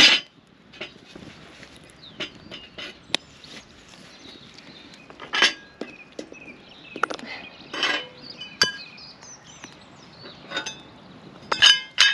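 Cast-iron stove-top plate and its removable burner rings clinking and clanking as they are handled, lifted off and set down: a scatter of separate metal knocks, some with a short ring, the loudest about five and a half seconds in, around eight seconds and near the end.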